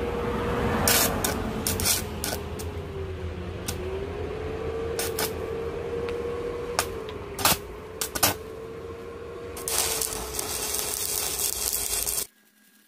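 An electric power tool's motor running under load, its whine sagging and recovering in pitch as the load changes, with a low hum, hiss and scattered sharp clicks; it cuts off suddenly near the end.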